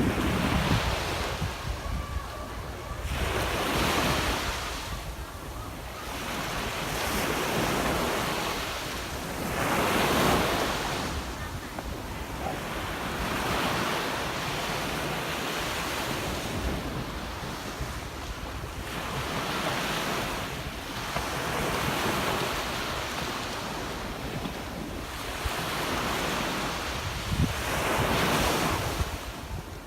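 Sea waves breaking and washing up a sandy beach, surging in a new swell about every three seconds, with wind rumbling on the microphone.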